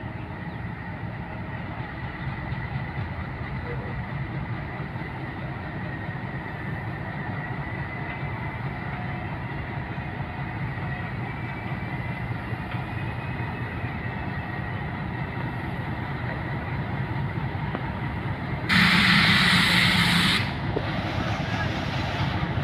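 ALCO diesel-electric locomotive 6401 moving off with its train, its diesel engine running with a steady low rumble that grows louder as it draws closer. Near the end comes a much louder blast lasting about two seconds.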